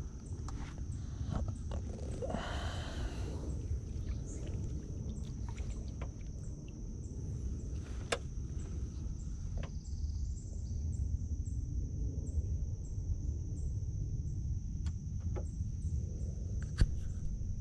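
Summer swamp ambience: a steady high-pitched insect drone with faint, evenly spaced ticks above it, over a low rumble. There is a brief noisy burst about two and a half seconds in and a few sharp clicks scattered through.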